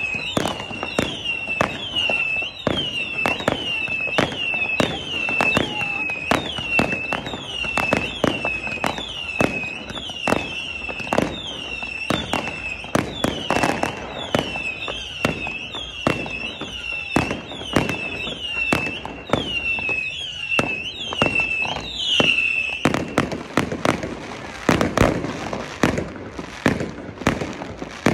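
Fireworks display: a rapid, uneven run of bangs and crackling bursts. Over most of it a high, falling chirp repeats about one and a half times a second, then cuts off a few seconds before the end.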